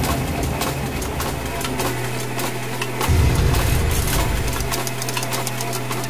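Sound-design machinery effects: rapid mechanical clicking and clattering over a steady low hum, with a deep bass rumble that swells again about three seconds in and falls away near five seconds.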